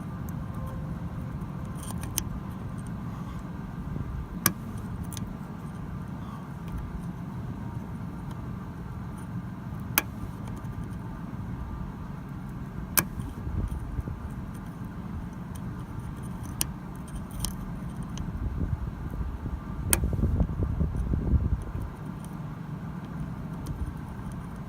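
Lock pick working in a 2010 Mazda 5's door lock: small sharp metallic clicks come irregularly every few seconds as the lock is being picked, over a steady low rumble, with louder handling noise near the end.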